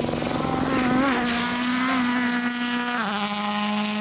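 Rally car engine pulling away at high revs, holding a steady note, with an upshift about three seconds in that drops the pitch.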